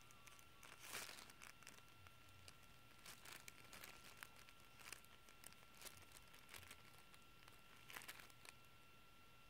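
Faint crinkling of the plastic sheet under the hands and egg as the egg is painted, in scattered soft crackles, loudest about a second in and again near the end.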